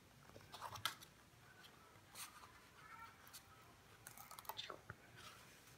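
Faint crinkles and soft clicks of a plastic sticker sheet being handled as a gold vinyl sticker is peeled off its backing, heard as a few scattered small sounds over near silence.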